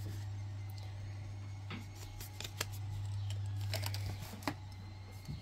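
Light rustling and a scattering of small clicks and taps from handling a paper perfume sample card and products in a cardboard box, over a steady low hum.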